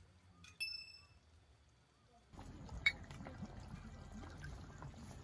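A glass clinks once with a short bright ring, then liquid pours steadily for a few seconds: soju poured into a glass, with a sharp click partway through.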